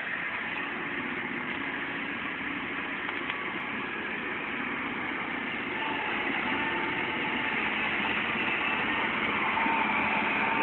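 Heavy truck engine running as the truck fords a fast-flowing river, over the steady rush of the water; it grows louder in the second half.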